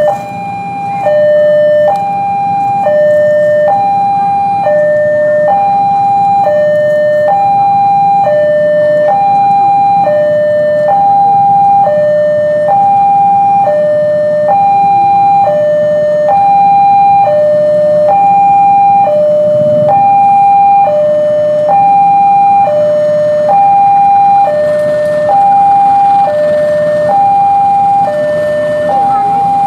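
Railway level crossing warning signal sounding: an electronic two-tone alarm that alternates steadily between a high note and a lower note, each held just under a second, warning that a train is approaching.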